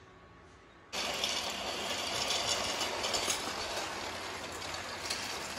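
Toy train set running on its plastic track: a steady mechanical clatter of motor and wheels with many small clicks through it, starting abruptly about a second in.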